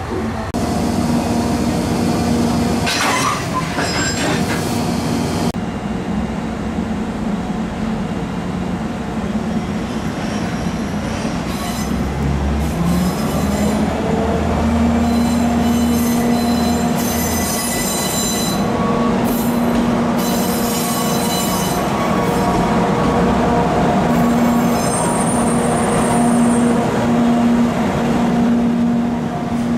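Freight train running past, its locomotive drone steady, with one rise in pitch about twelve seconds in. Bursts of high-pitched wheel squeal come and go through the middle and latter part.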